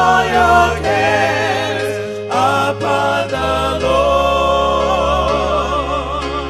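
Gospel music: voices singing with vibrato over long bass notes that change every second or so.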